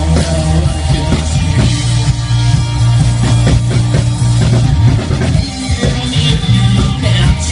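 Live rock band playing through a PA: guitars over a steady drum-kit beat, loud and continuous.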